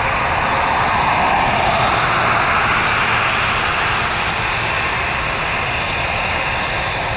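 Twin-engine jet airliner climbing out after takeoff: a steady, continuous rushing jet engine noise at climb power.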